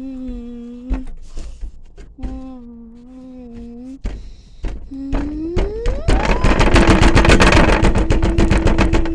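Washing machine motor whining as the drum shifts speed, with scattered knocks. About six seconds in the whine rises sharply as the drum ramps up toward its 1600 rpm final spin, and a loud, very rapid rattling and banging of the shaking machine takes over.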